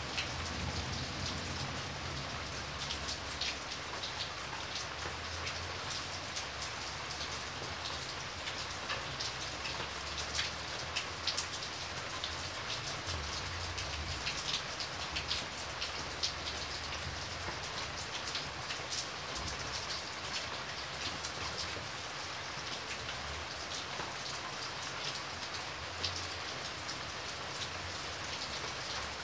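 Steady rain falling, an even hiss with many individual drops ticking sharply on a hard surface, over a faint low rumble.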